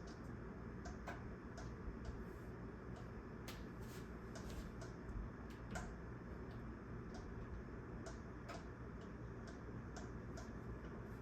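Casablanca Holliston ceiling fan running, a steady low hum with irregular light clicks about one or two a second. The owner notes that the fan wobbles and scrapes more at high speed, and that its flywheel will need replacing as it wears.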